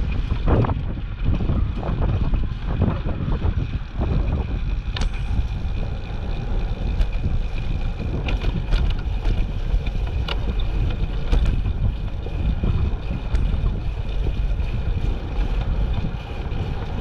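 Wind buffeting the microphone of a camera on a moving bicycle: a steady low rumble, with scattered light clicks and rattles from about five seconds in.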